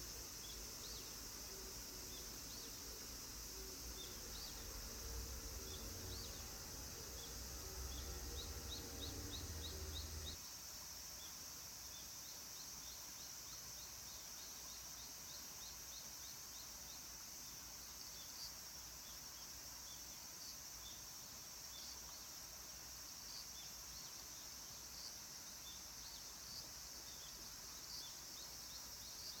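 Outdoor ambience with insects chirping: a steady high hiss with short, quickly repeated chirps. A low rumble runs underneath for the first third and stops suddenly.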